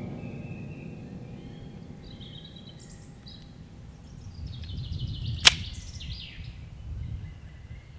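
A CZ P07 pistol's slide snapping forward once with a sharp metallic clack about five and a half seconds in, the loudest sound here. Birds chirp in the background.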